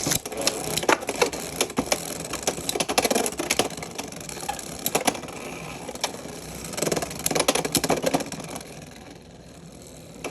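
Two Beyblade X spinning tops launched into a plastic stadium with a sharp rip at the start, then spinning and clashing: a scraping whir broken by many sharp plastic clacks from hits, which dies down and quiets near the end as the battle finishes.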